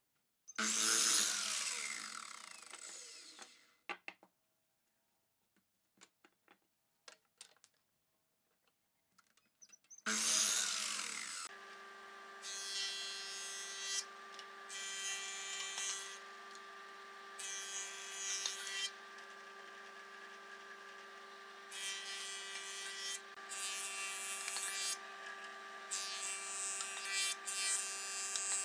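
An electric power tool runs briefly and winds down, followed by a few light clicks and knocks. It then starts again and runs steadily, working wood in repeated louder passes of a second or two.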